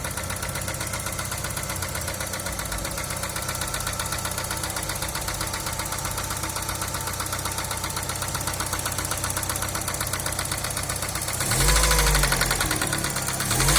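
Daewoo Nexia's engine idling with a rapid, even knocking, then revved up and let back down about 11 seconds in, with another rev starting near the end. The engine knock is the fault the owner is showing.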